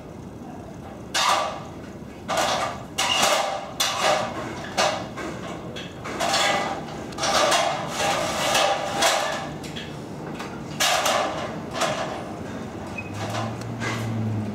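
Irregular hammer blows on a wooden fascia board, about a dozen over the stretch, each ringing on briefly.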